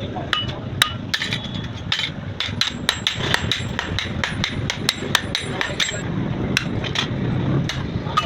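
Hammer blows on steel while forging a knife blade: an irregular run of sharp metallic strikes, several a second and quickest through the middle, over a steady low hum.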